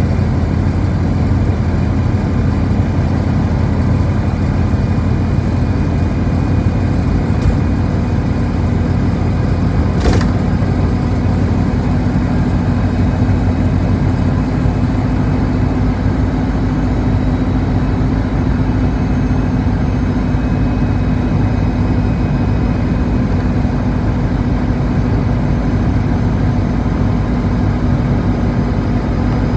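City bus cruising at steady speed on a highway, heard inside the passenger cabin: a loud, steady drone of engine and tyre noise. A single short click about ten seconds in.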